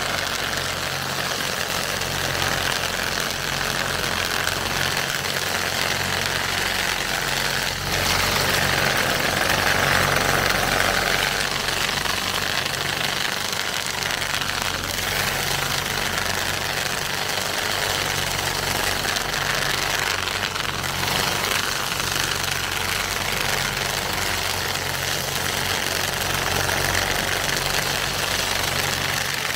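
Tractor engine running steadily as it carries and powers a Seppi M. hydraulic under-vine cultivator working the soil between the vines. The sound is louder for a few seconds about eight seconds in.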